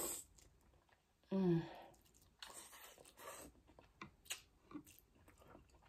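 Close-up wet chewing of sauce-coated lobster meat, with smacking and clicking mouth sounds. A short hummed "mm" comes about a second and a half in.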